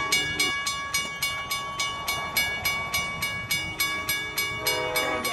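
Grade-crossing warning bell ringing rapidly, about four or five strokes a second, warning of an approaching Amtrak train. Near the end the approaching train's horn sounds over the bell.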